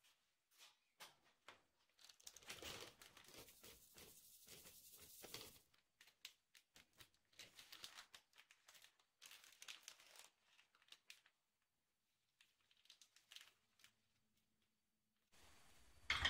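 A plastic bag crinkling and rustling in uneven spells, with small clicks and taps, as rice bran is saved into it. Near the end, a single sharp clunk as a clay donabe pot is set down on the gas stove grate.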